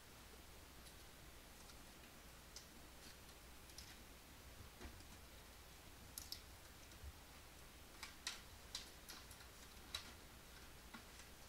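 Faint, scattered clicks and light crinkling of cardboard and plastic packaging being handled, busiest about eight to ten seconds in.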